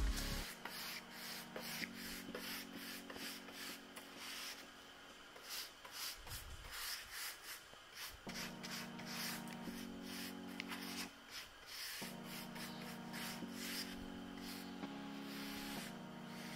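Bristles of a paintbrush swept back and forth in repeated short strokes over a painted wooden cabinet door, brushing on a watered-down paint patina and working it into the carvings and mouldings.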